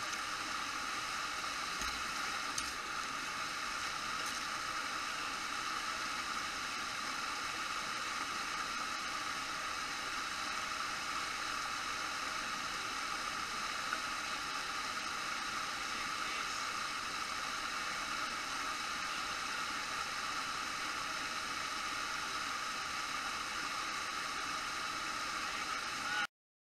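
Small waterfall and rocky forest stream rushing steadily close by. The sound cuts off abruptly near the end.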